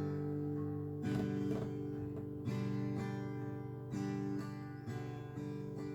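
Instrumental song accompaniment on acoustic guitar: strummed chords that change about every second and a half, with no singing.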